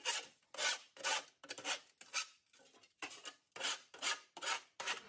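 A hand file scraping along the cut edge inside a sheet-metal stove pipe, taking off the burrs in short, quick strokes of about three a second, with a pause of about a second midway.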